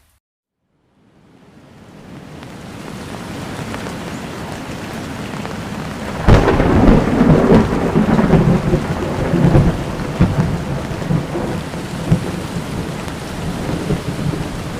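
Heavy rain fading in from a brief silence, then a sudden loud thunderclap about six seconds in that rumbles on for several seconds over the steady downpour.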